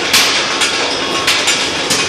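Skew rolling mill for steel balls running hot: a steady mechanical din with irregular metallic clanks, two or three a second, as glowing steel balls come off the spinning rolls onto the steel chutes.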